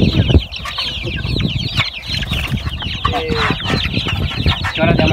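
A crowd of young chickens peeping continuously, many short falling chirps overlapping, as they are handled in a wire cage. Knocks and rustling from the handling sound underneath.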